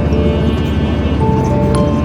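Background music: held melodic notes over a steady, dense low accompaniment.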